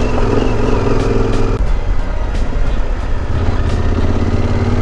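Yamaha Super Ténéré's parallel-twin engine running steadily as the motorcycle rides along a gravel road, with tyre and wind noise under it. The engine note shifts about one and a half seconds in, then runs on evenly.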